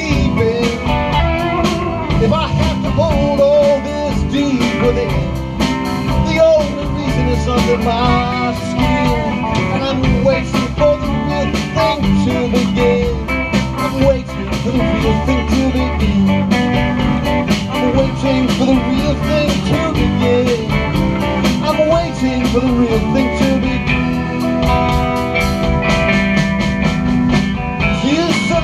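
Live rock band playing an instrumental break: electric guitars over a steady drum beat.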